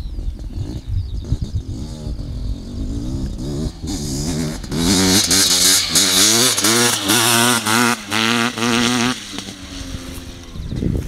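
Honda CR500's big single-cylinder two-stroke engine being ridden. It runs rough and low at first, then revs hard and loud from about five seconds in, its pitch climbing and dropping back several times in quick succession. Near nine seconds the throttle is shut and it falls back to a lower, quieter running note.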